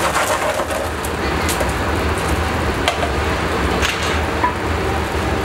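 Steady outdoor street background: a constant low rumble with an even wash of noise and a few sharp clicks or knocks scattered through it.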